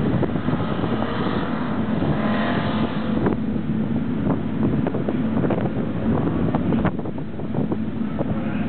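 Air-cooled VW engine of a small open kit car running under load as it drives away, its pitch rising about one to three seconds in. Short thumps of wind on the microphone run through it.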